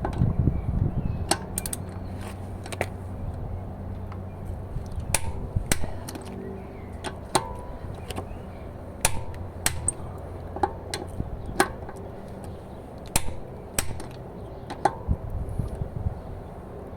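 Click-type torque wrench set to 110 Nm clicking on car wheel bolts: about a dozen sharp clicks, each with a brief metallic ring, every second or so. Each click signals the set torque is reached, showing the bolt is already at 110 Nm.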